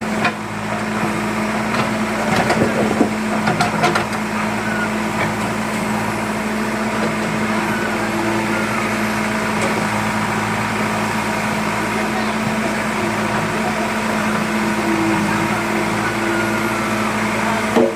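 Excavator's diesel engine running at a steady pitch, with a few sharp knocks and clanks of the machine working a couple of seconds in.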